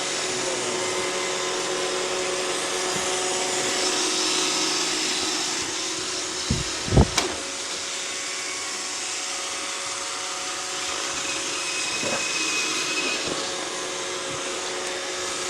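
iRobot Roomba 620 robot vacuum running, a steady whir with a constant hum, with two or three sharp knocks about seven seconds in.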